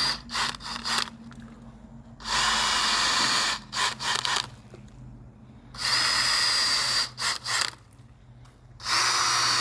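Cordless drill spinning a Maxbit planting auger into potting mix through an EarthBox's plastic cover, in three runs of about a second each with a steady whine. Each run is followed by a few short quick blips of the drill.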